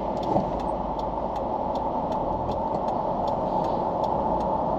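Inside a car waiting to make a U-turn: a steady engine and traffic hum, with the turn signal ticking evenly about three times a second.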